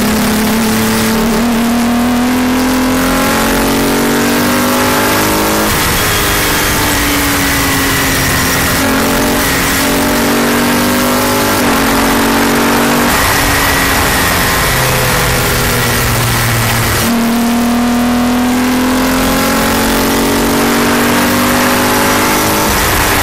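Palmer Jaguar JP-LM race car's engine at speed, its pitch rising and falling with several gear changes, heard from the open cockpit with wind rushing over it.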